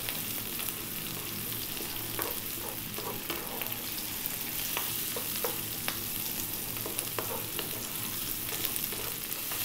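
Sliced onion, mushrooms and garlic sizzling in hot sunflower oil in a non-stick frying pan on high heat. They are stirred with a wooden spatula that knocks and scrapes lightly against the pan every second or so.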